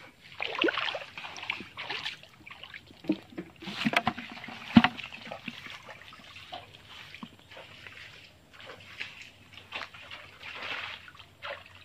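Shallow, muddy canal water splashing and sloshing in irregular bursts as it is disturbed, with a couple of sharper knocks about four and five seconds in.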